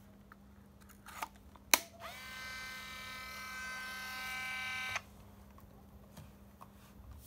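Olympus Trip AF 51's film-back door snapping shut with a sharp click, after a lighter click, then the camera's built-in film-advance motor whirring steadily for about three seconds before it stops suddenly. This is the auto-load cycle that runs when the back is closed.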